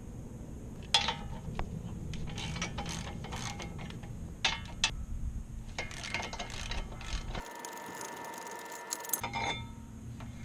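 Irregular metallic clicks and clanks of hand tools and brake parts being handled, over a steady low rumble.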